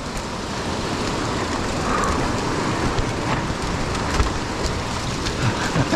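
Mountain bike riding over a rocky dirt trail: a steady rushing noise of tyres on dirt and rock, with frequent clicks and rattles from the bike.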